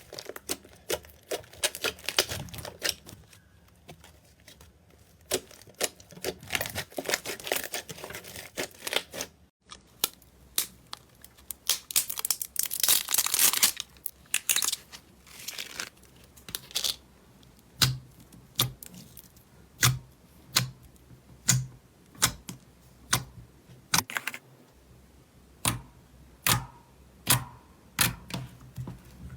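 Slime being squeezed, stretched and poked by hand, giving sharp pops and clicks as air pockets burst. Dense crackling runs come in the first half, then single pops about one or two a second.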